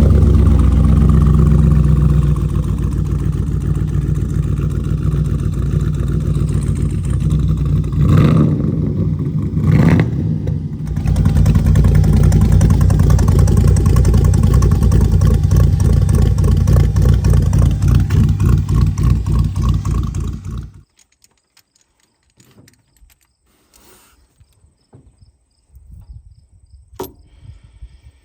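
LS V8 engine in a 1954 Chevrolet Bel Air idling, with two brief revs about a third of the way in, then switched off about three-quarters through. The engine is running with a misfire.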